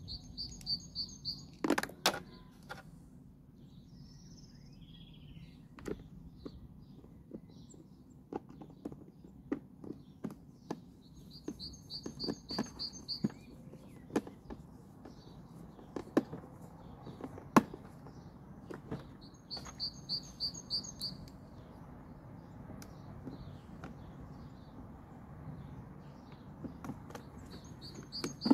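Scattered sharp clicks and taps of screws and a screwdriver against a plastic mower housing as a motor is screwed back into place. A small songbird sings a short, fast, even trill of about a second, repeated a few times several seconds apart.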